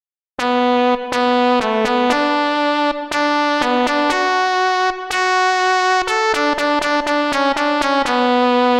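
Isolated keyboard track of a synth-pop song: a bright, overtone-rich keyboard playing a repeating melody of separate struck notes, a few a second, starting about half a second in.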